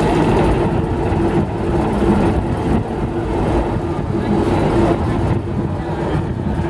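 TEM18DM shunting diesel locomotive standing still with its diesel engine idling: a steady low running hum.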